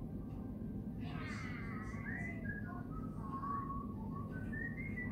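A run of high whistled notes that slide up and down in pitch, starting about a second in, over a steady low rumble.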